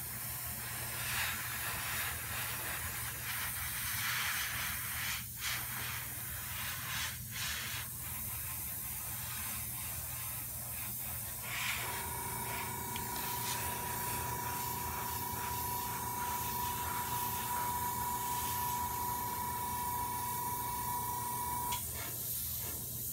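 Iwata airbrush spraying paint with a steady airy hiss. About halfway through, a steady high whine joins it and stops shortly before the end.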